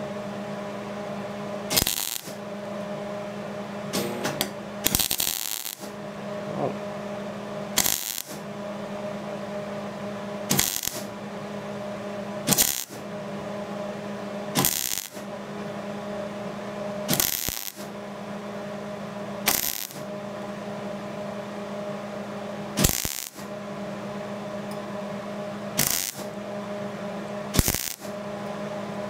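MIG welding arc crackling in short trigger pulls, about a dozen bursts spaced two to three seconds apart, with a steady hum between them. This is stitch welding stainless exhaust tubing to mild steel with mild steel wire: each short burst lays a tack into the last, and the pauses let the puddle cool across a wide gap in the joint.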